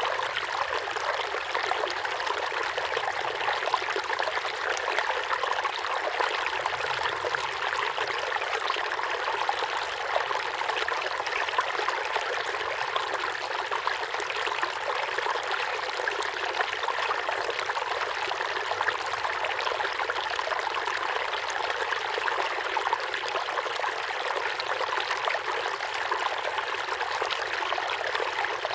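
Steady rushing of flowing water, like a stream, even and unbroken throughout.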